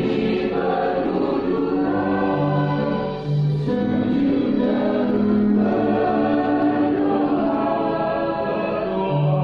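Church choir singing a hymn in sustained, held notes in several-part harmony, with a short break for breath about three seconds in.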